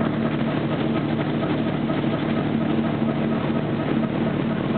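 The ship's diesel engine of the motor vessel M/S Grytøy running steadily under way, heard from the foredeck as an even low drone with a steady hum.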